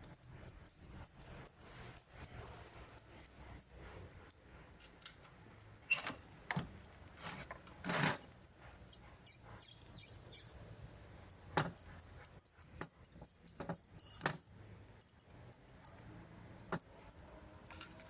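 Scattered clicks, taps and clinks of small metal parts and hand tools being handled during reassembly of a concrete mixer motor, with a few louder knocks about six, eight, twelve and fourteen seconds in.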